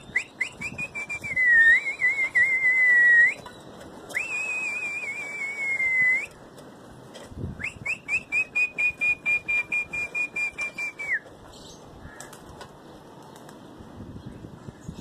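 Loud, high whistling by a pigeon keeper to his flock in flight: three long whistles, each opening with a run of quick short chirps and then a held, wavering note, the last one breaking off about eleven seconds in.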